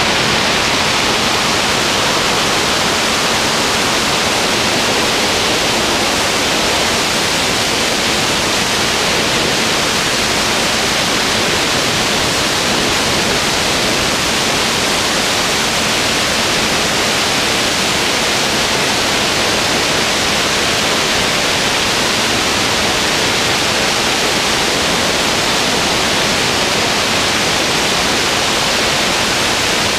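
Loud, steady hiss like radio static, even and unchanging throughout, with no engine or propeller tone in it.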